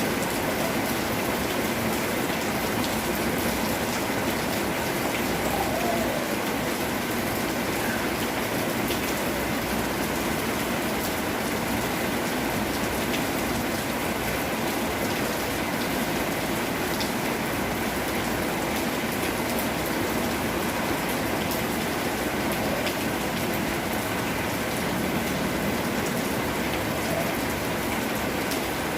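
Steady, even rain falling, unbroken throughout.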